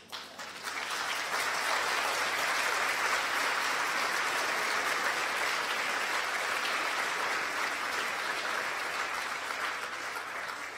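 Audience applauding. It builds up over the first second or so, holds steady, and thins out near the end.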